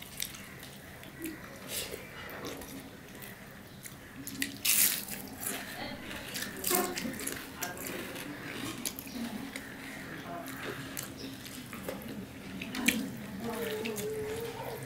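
Fingers mixing rice with dal and curry on a stainless steel plate: wet squelching and irregular sharp clicks of fingertips and food against the metal. A short wavering murmur of voice comes near the end.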